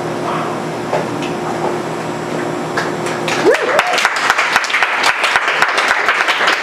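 An audience bursts into applause about halfway through, with a rising whoop as it starts; before it, a few seconds of steady room hum with faint murmurs.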